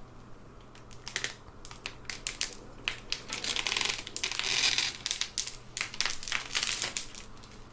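Plastic packaging crinkling and crackling, with a run of sharp clicks and taps from computer parts being handled, densest in the middle.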